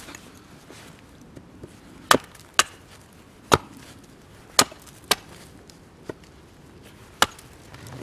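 Hatchet chopping into a thin green sapling pole resting on a stump: six sharp chops and one lighter one, starting about two seconds in, at uneven intervals, some in quick pairs.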